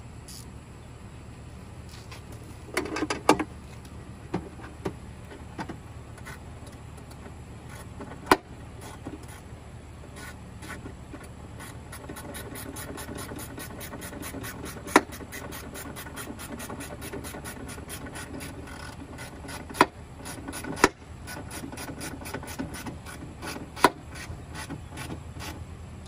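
Hand work on the Tesla Model S door-handle parts inside the open door: several sharp clicks and knocks of parts and tools, with rubbing and scraping. From about halfway, a quick, even run of light ticks joins in, all over a steady low hum.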